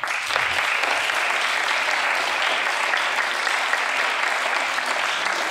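Audience applauding, a dense and steady clapping that starts abruptly.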